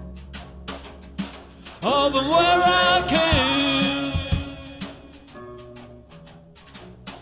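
Outro music with a steady percussion beat. About two seconds in, a loud held melodic line, wavering in pitch, comes in for about three seconds, then fades back under the beat.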